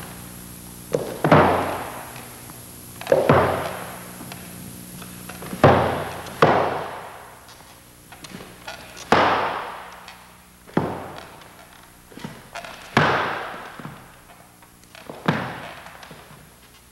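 High-heeled shoes stepping slowly on a hardwood floor, with about nine sharp heel strikes one to two seconds apart. Each strike rings out in an echoing room, over a low steady hum.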